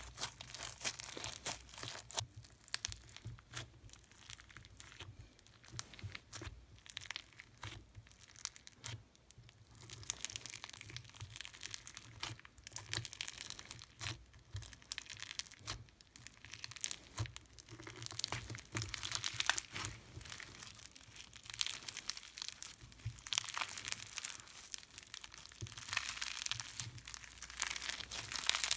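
Slime being stretched, squeezed and poked by hand, giving a dense run of small crackling, popping clicks.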